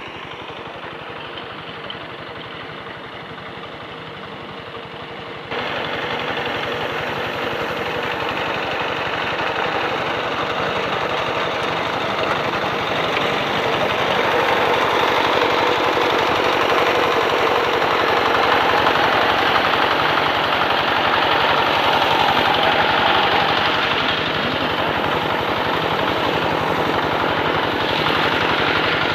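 Rice harvesting machine's engine running with a rapid, even chattering beat. It jumps suddenly louder about five seconds in and stays steady after that.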